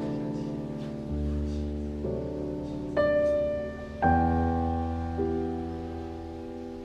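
Soft background piano music: slow, sustained chords struck about once a second, each note fading away.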